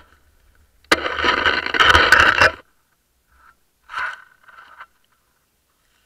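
Footsteps crunching through snow close to the microphone. A loud stretch of crunching lasts about a second and a half, then a shorter, fainter crunch comes about four seconds in.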